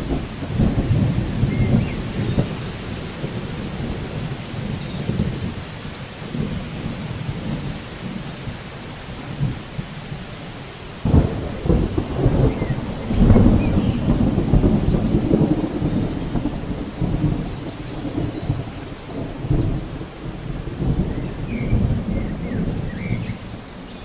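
Heavy rain falling steadily on foliage, with rolling thunder rumbling on and off. About halfway through, a sharper crack of thunder is followed by the loudest, longest rumble.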